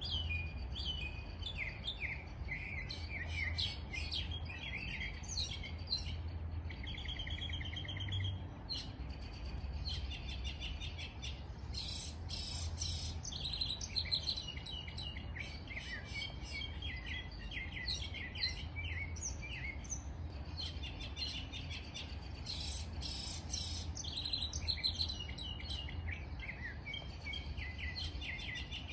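Several small songbirds chirping and singing at once: overlapping short calls, whistles and quick trills, with a steady low rumble underneath.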